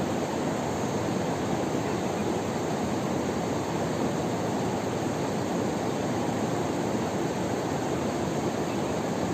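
Steady rushing of a fast mountain river, the Tirthan, flowing over rocks, loud and unchanging.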